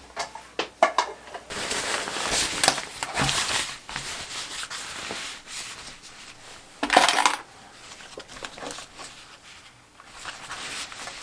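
Rustling of a Gore-Tex jacket's stiff shell fabric as it is handled and folded, with a few small sharp clicks and clinks in the first second and a louder rustle about seven seconds in.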